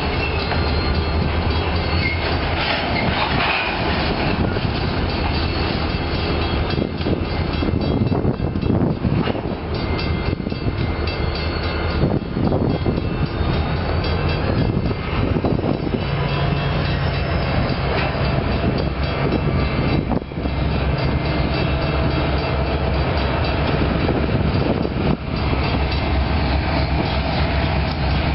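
Loaded covered hopper cars of a freight train rolling slowly by, their wheels clicking over the rail joints, over a steady low rumble.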